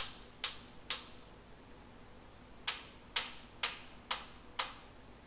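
Hammer tapping on a wooden block against a teak chair frame, driving the tenons home in their mortises to close the joint gaps. Two sharp taps, a pause of about a second and a half, then five more at about two a second.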